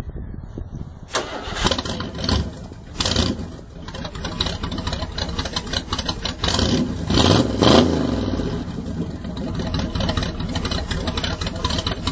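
Small engine of a homemade tracked vehicle running through open exhaust pipes without mufflers. It starts about a second in with a few sputtering bursts, catches and runs, revs up and back down around the middle, and cuts off at the end.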